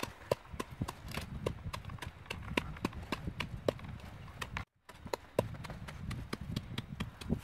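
Irregular sharp clicks and light taps, a few per second, over a low rumble, broken by a brief dropout just past the middle.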